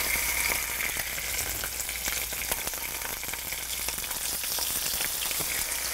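Skin-on chicken thigh pieces searing skin side down in hot oil in a frying pan: a steady sizzling hiss full of small pops and crackles.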